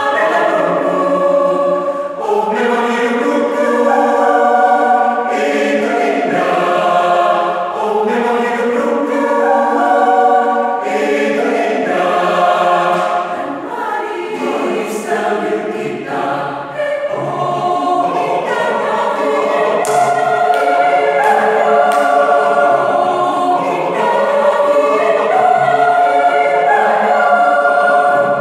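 Mixed church choir of men's and women's voices singing a hymn in harmony, in phrases of held notes with brief breaks between them.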